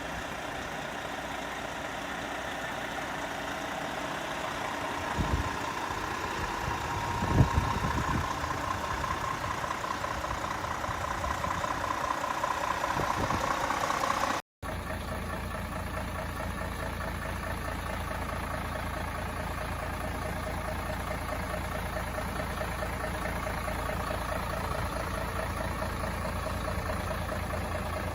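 Remote-control construction model machinery running: a steady motor whine that rises slightly about halfway through, with two knocks. Then, after an abrupt cut, a steady low engine-like drone.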